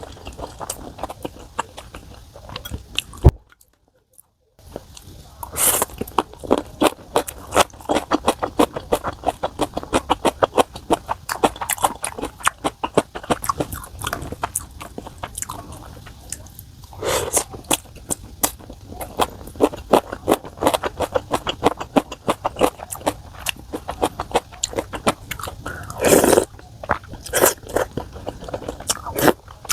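Close-miked eating sounds: steady chewing with many quick small clicks and smacks. Now and then there is a louder, longer sound, the loudest near the end. The sound drops out to silence for about a second early on.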